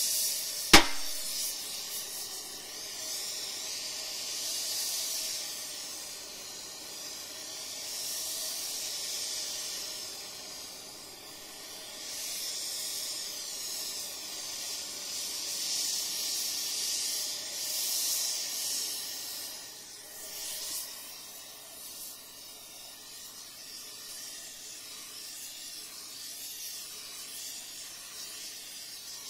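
Oxy-fuel heating torch flame hissing steadily on the steel of an excavator stick, heating the warped metal to straighten it. The hiss swells and eases every few seconds. A single sharp hammer blow on the steel about a second in.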